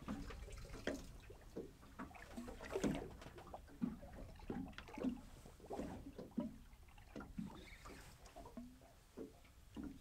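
Water lapping and slapping irregularly against a small boat's hull.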